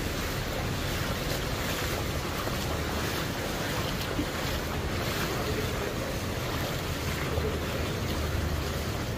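Footsteps splashing and wading through ankle-deep floodwater on a pavement, over a steady wash of noise.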